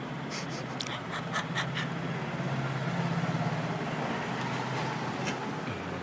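A quick run of small sharp clicks, about six or seven within a second and a half, then one more click near the end, from a 3.5 mm jack plug and wire being handled while the shield wire is soldered to it. A steady low hum runs underneath.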